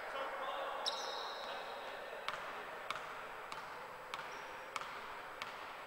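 A basketball being dribbled on a hardwood court before a free throw: sharp, even bounces about every 0.6 seconds.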